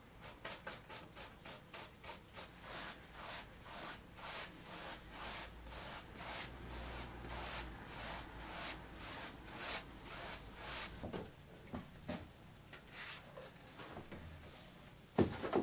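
Soft varnish brush stroking back and forth across the surface of an oil painting, a dry rubbing swish about twice a second, stopping about eleven seconds in. A short, louder knock of handling comes near the end.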